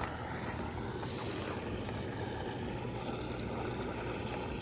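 Hot tub's circulation pump running, a steady low hum under a constant hiss.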